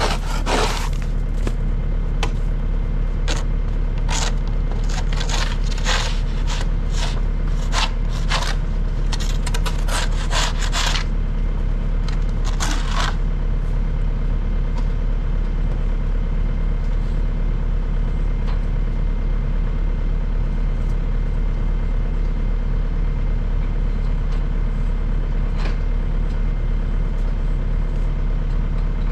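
Loader engine idling steadily. Over the first ten seconds or so there is a run of sharp scrapes and knocks, with one more a little later.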